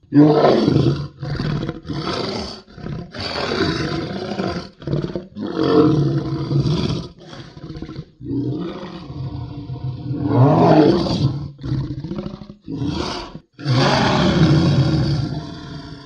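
A fictional dinosaur creature's sound effects: a run of about a dozen roars and growling calls, some short and some drawn out over a second or two, with brief gaps between them.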